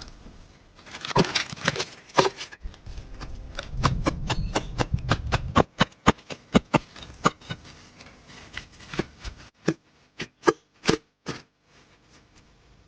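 Work noise of a bushcraft build: a cluster of clicks and rustling handling noise, then a run of sharp knocks about two a second that thin out and stop a second or so before the end.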